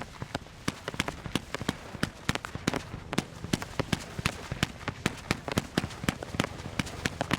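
Aerial fireworks display: a rapid, irregular run of sharp cracks and bangs from shells bursting, several a second, over a low rumble.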